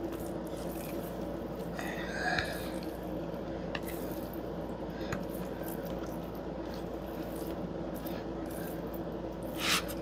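Raw chicken strips squishing softly as bare hands toss them in dry blackening seasoning inside a plastic container, over a steady low hum.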